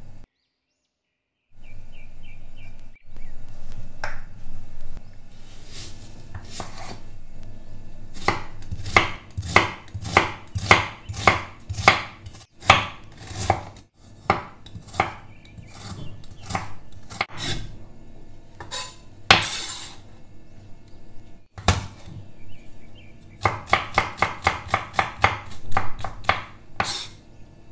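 Large cleaver-style kitchen knife chopping ginger and garlic on a bamboo cutting board: a long series of sharp knife strikes on the wood, speeding up into a fast run of rapid mincing strokes near the end.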